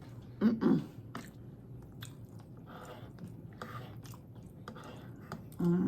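Close-mic'd chewing and crunching of a crispy tostada, in faint irregular bites. Two short voiced sounds, about half a second in and again near the end, stand out as the loudest parts.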